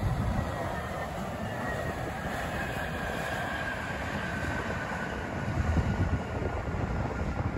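Airbus A320 jet engines heard during the landing rollout: a steady roar with a faint whine that slowly falls in pitch as the airliner slows on the runway.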